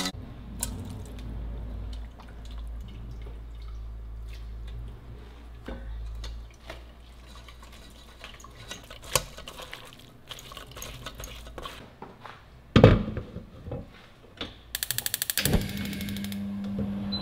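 Kitchen handling sounds: scattered clinks and knocks with water and liquid sounds, a loud knock about thirteen seconds in, and a quick run of rapid clicks near the end.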